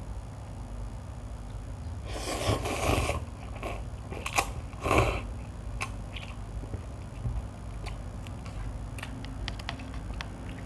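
A person slurping hot instant cup noodles: one long slurp about two seconds in and two short ones a couple of seconds later, with quiet chewing and faint clicks of the fork in the cup afterwards.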